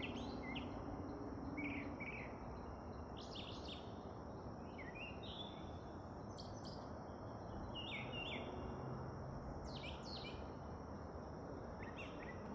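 Outdoor birdsong: short clusters of high chirps and calls every second or two over a steady high insect buzz and a low background hiss.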